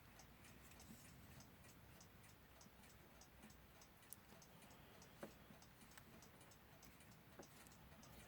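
Faint, quick, even ticking of a mechanical clock, with a few soft clicks of small parts being handled.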